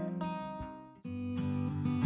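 Background music that fades away, then about halfway through a new, fuller passage starts abruptly.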